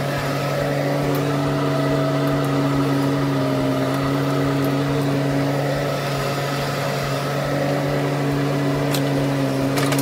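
Bobcat E10 mini excavator's diesel engine running steadily under hydraulic work as the boom and bucket dig into the pit. There are a few sharp knocks near the end.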